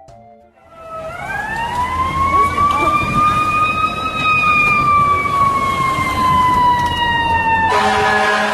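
Emergency vehicle siren giving one long, slow wail that rises for about three seconds and then slowly falls, over a low rumble. Near the end a steady chord-like tone cuts in.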